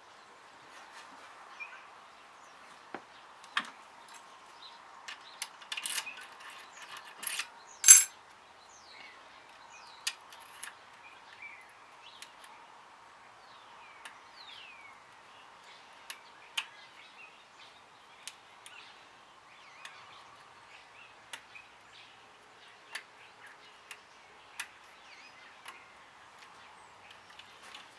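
Scattered light metallic clicks and taps from an ABUS D6 euro cylinder lock being handled and worked with a pick tool in its keyway, with one louder, ringing metal clink about eight seconds in.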